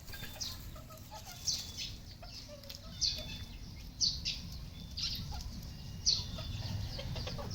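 Red junglefowl calling: short, sharp, high calls falling in pitch at about one a second, with softer low clucks between them, over a steady low rumble.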